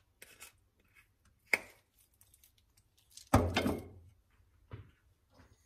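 A few separate kitchen knocks and clunks of utensils and containers being handled, one about a second and a half in and the loudest, with a short ringing tail, about three and a half seconds in.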